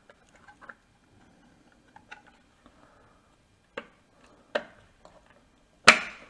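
Plastic clicks and knocks as a wifi chrono-thermostat is pressed onto its wall mounting plate, hooked on at the top and snapped in at the bottom. Light handling noise with a few sharp clicks in the second half, the last one the loudest.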